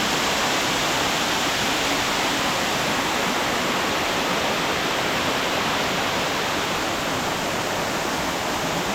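Steady rush of a large waterfall pouring down over rock, the water in heavy flow.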